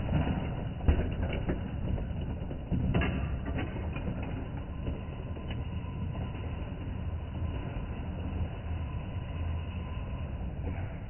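Motorised Lego passenger train running along plastic track, a steady low hum from its motor and wheels with a few sharp plastic knocks about one and three seconds in, slowly growing fainter as it moves off.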